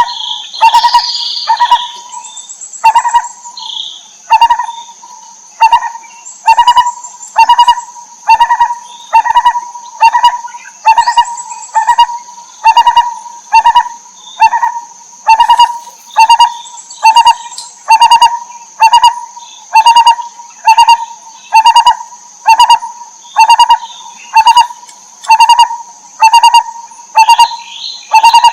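Lineated barbet calling: a long, monotonous series of short, low notes repeated at a steady pace. Some higher chirps come in right at the start and again near the end.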